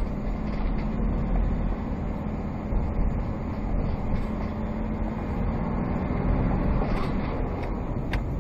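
Steady driving noise of a road vehicle at speed: engine hum and road rumble with a low drone.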